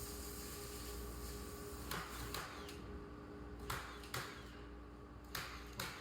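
About six light knocks or taps, scattered irregularly from about two seconds in, over a steady low hum; a background hiss drops away about three seconds in.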